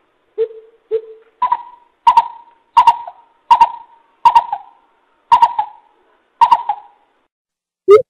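Coucal calling with hollow hoots: two low notes, then a series of seven higher-pitched hoots about one every 0.7 seconds.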